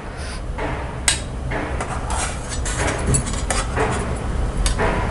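Slotted stainless steel spatula clinking and scraping against a steel steamer tray and bowl while steamed rice dumplings are lifted out. There are several sharp metal taps, the loudest about a second in.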